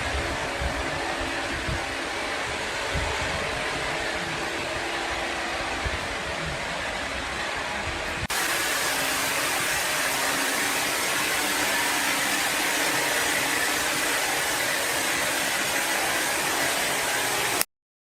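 Woodworking machinery running steadily, a whirring noise with a faint hum in it; about eight seconds in it switches abruptly to a louder, hissier machine noise, which cuts off suddenly near the end.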